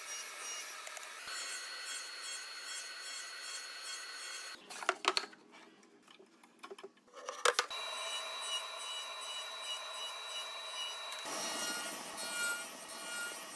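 Radial arm saw running with a stacked Freud dado set, the spinning blades cutting across wood to form tenons: a steady motor whine with cutting noise. The sound changes abruptly several times, with a quieter stretch of a few sharp clicks from about five to seven and a half seconds in.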